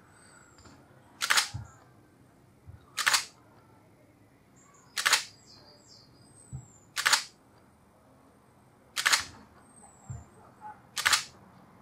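Pentax DSLR shutter and mirror firing six times, a short clack about every two seconds. An Arduino intervalometer is triggering the exposures for a time-lapse set to a 2-second interval and a count of six.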